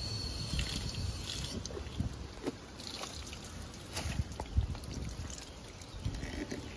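Water from an outdoor hose spigot running and splashing into a plastic jug, with a few knocks as the jug is handled.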